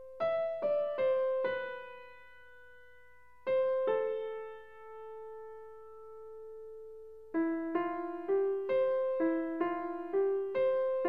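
Background music: a piano playing a simple melody of single notes that ring and fade. A few slow notes, a pause, then from about two-thirds through a steadier run of two or three notes a second.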